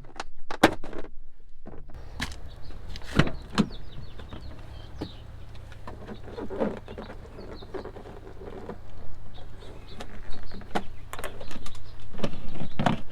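Scattered clicks and knocks of things being handled in a pickup truck's cab, over a steady low hum that starts about two seconds in; the knocks come thicker near the end.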